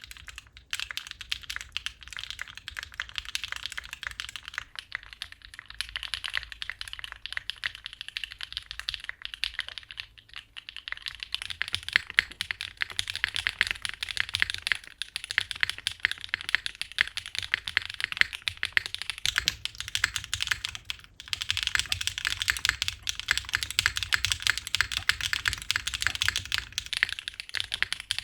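Fast, continuous typing on a mechanical keyboard: dense clacks of keyswitches bottoming out, with a few brief pauses. The typing grows denser and louder about twelve seconds in.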